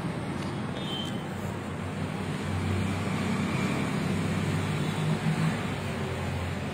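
Steady road traffic rumble of passing vehicles, swelling a little in the middle.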